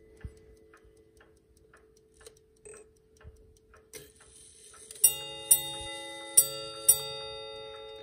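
Chelsea ship's strike clock ticking faintly as its minute hand is turned, then its bell striking four times in two pairs, each strike ringing on. Two pairs of bells, the ship's-bell count for two hours into the watch.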